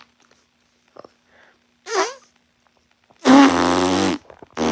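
Mouth-made fake fart: lips blown hard against the bare arm, giving a loud buzzing raspberry about a second long, about three seconds in. A second, shorter one follows just before the end, with a brief smaller blurt earlier, about two seconds in.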